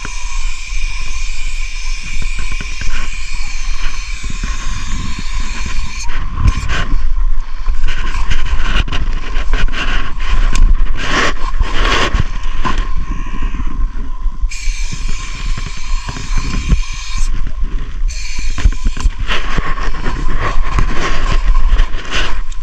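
Aerosol spray-paint can hissing in long stretches as a wall is filled in. Through the middle stretch the hiss gives way to a run of short clicks and knocks, and it starts again about two-thirds of the way in.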